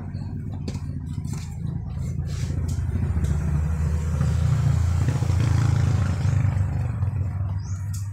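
A motor vehicle engine running close by, growing louder to a peak about halfway through and then fading, as it passes. A few faint clicks in the first three seconds.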